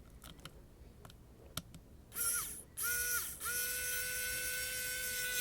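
Wowstick F1+ precision electric screwdriver's small motor whining at a steady pitch in three runs, the last nearly two seconds long, as it drives a small screw back in. A few light clicks come before the first run.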